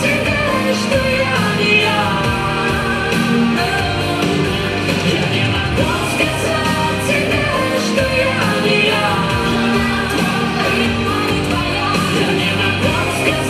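A song playing loud: a sung vocal melody over a full musical backing, with no break.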